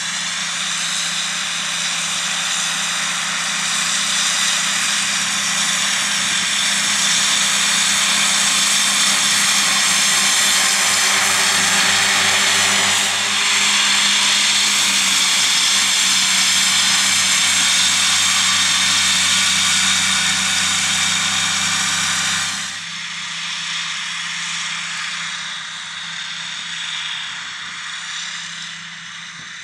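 Fendt 826 Vario tractor working with a Kuhn triple mower set: a steady, loud engine drone with a high, even whine over it. The sound drops suddenly about two-thirds of the way through and goes on more quietly.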